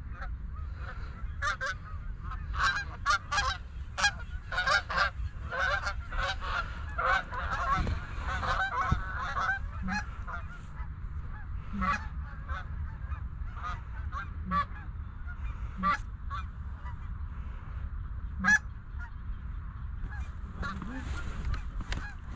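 Flock of Canada geese honking as they come in, many overlapping calls that are densest in the first half and thin out to scattered single honks later.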